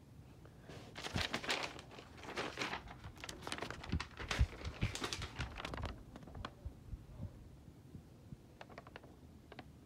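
Rustling, clicking handling noise, densest from about one to six seconds in, then a few sharp crinkles near the end as a sheet of lined paper is held up.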